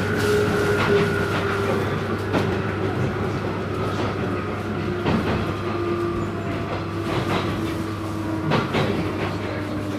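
Onboard 719 series electric multiple unit: a traction motor whine falling slowly in pitch as the train slows, over a steady low hum, with wheel clicks over rail joints. This car's motor note differs from the usual 719 series, an abnormal motor sound.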